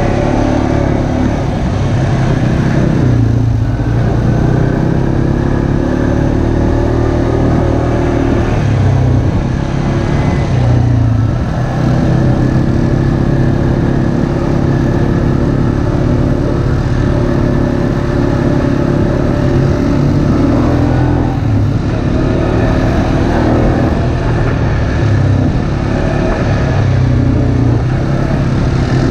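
ATV engine running at riding speed on a dirt trail, its note easing briefly a few times as the throttle comes off and then picks back up.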